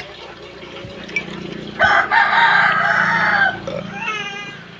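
A rooster crowing once: one long call beginning about two seconds in and ending in a wavering tail near the end.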